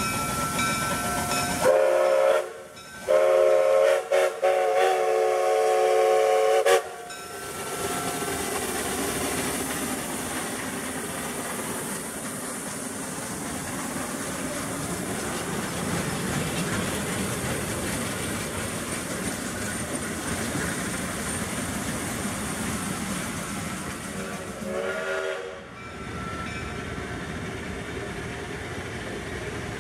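Steam whistle of a 30-inch gauge replica Shay geared steam locomotive: a short blast about two seconds in, then a long blast lasting nearly four seconds. After that comes the steady rumble and clatter of the little train rolling past, with one more brief whistle near the end.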